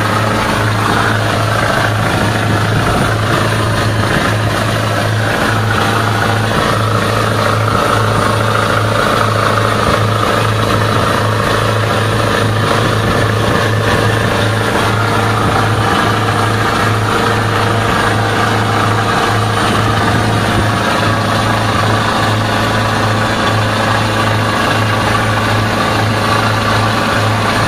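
A passenger boat's engine droning steadily at cruising speed, a constant low hum under an even rushing noise of wind and churning wake on the open deck.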